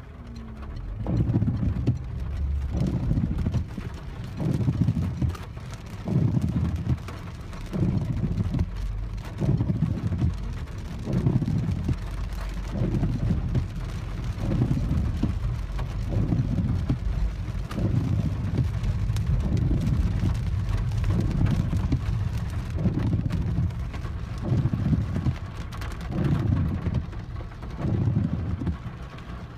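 Heavy rain on a car heard from inside the cabin while driving, with the windscreen wipers going and a low thump repeating roughly once a second.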